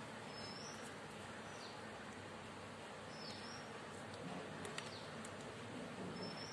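Quiet background hiss with a faint short high chirp repeating about every three seconds, and a few faint clicks about three-quarters of the way through.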